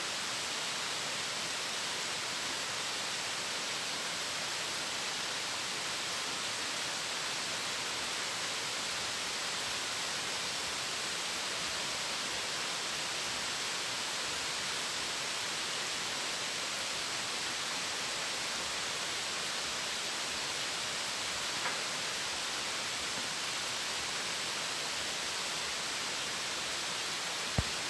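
Pouring rain as a steady, even hiss with no swell or break. There is a faint click about 22 seconds in and a sharper tick near the end.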